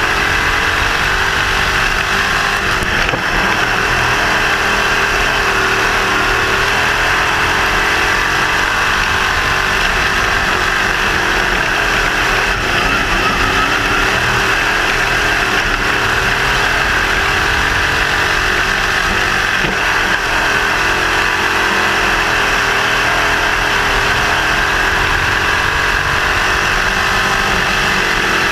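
Crate sprint car's GM 602 crate small-block V8 running hard at racing speed, heard from the open cockpit. It is loud and continuous, its pitch rising and falling a little through the laps.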